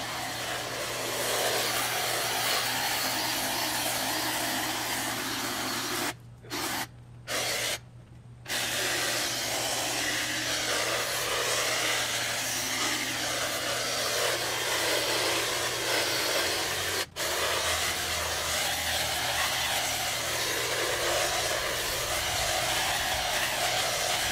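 Lawn power equipment running steadily, with three short drop-outs a little after six seconds in and one brief one near seventeen seconds.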